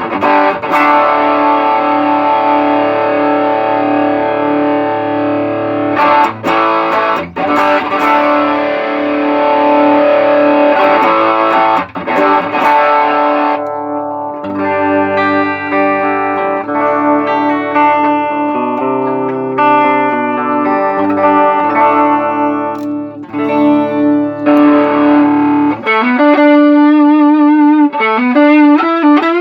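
Electric guitar played through an Ibanez TS808 Tube Screamer overdrive pedal, testing the pedal after a repair to its switching circuit. Held overdriven chords ring for the first half, then come shorter single notes and changing chords, with string bends and vibrato near the end.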